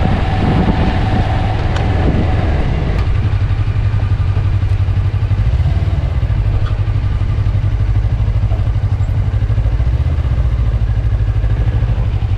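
Motorcycle engine running steadily at cruising speed, a constant low rumble with a fast even pulse under a rush of wind noise.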